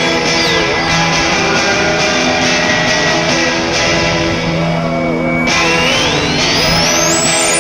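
Background rock music with electric guitar, with a high rising sweep about five and a half seconds in.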